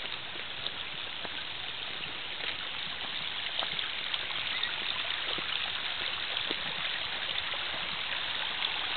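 Muddy storm runoff flowing down a dirt road: a steady rush of water that grows slightly louder.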